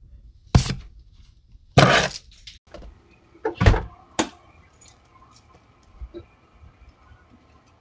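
A few loud knocks and thumps, four of them in the first four seconds, the second a longer scraping thump, followed by quiet room sound with a few faint clicks.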